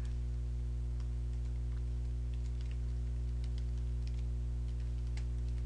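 Computer keyboard typing: faint, irregular key clicks over a steady low electrical hum.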